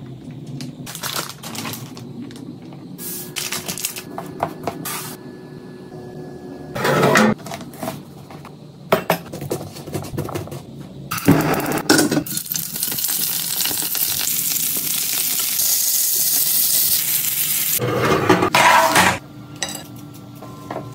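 Kitchen prep sounds in quick succession: sharp knocks and clicks of a bottle, knife and food on a board, then from about eleven seconds in a steady sizzle, shrimp and lemon slices frying in a pan for about seven seconds, then a few more knocks.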